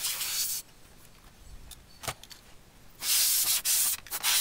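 Canned compressed air sprayed in hissing bursts at a laptop's dust-clogged cooling fan: one burst cuts off about half a second in, a small click follows near two seconds, and a second burst starts about three seconds in, breaking briefly near four seconds.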